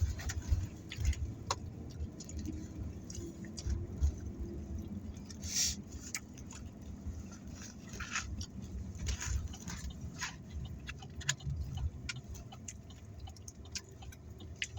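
Chewing and eating noises close to the microphone, with scattered small clicks and rustles, over a low steady rumble inside a car. There is a brief hiss about five and a half seconds in.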